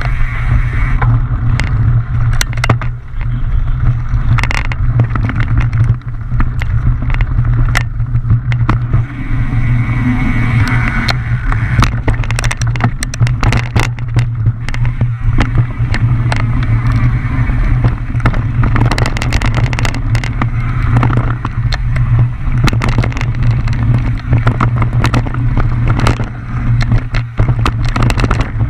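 Mountain bike running fast down a rough dirt trail, heard on the bike's action camera. Wind rumbles steadily on the microphone, and irregular sharp clacks and rattles come from the bike frame and chain as the tyres hit rocks and roots.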